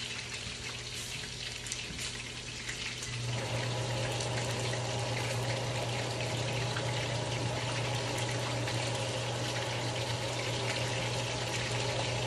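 Shrimp and zucchini frying in a pan of hot oil: a steady sizzle, with a low steady hum under it that gets louder about three seconds in.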